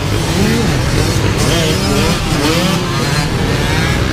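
Husaberg FE 550 supermoto's single-cylinder four-stroke engine running under way, its pitch rising and falling as the revs change, over a steady rush of wind noise.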